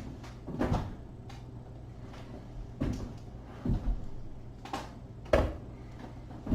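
Scattered knocks and clicks of hands working on the wire harness inside a wall oven's sheet-metal housing, about six separate clunks with the loudest near the end, over a low steady hum.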